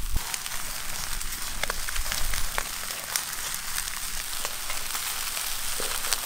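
Whole chickens roasting on spits over charcoal embers, sizzling with a steady hiss and scattered sharp crackles and pops.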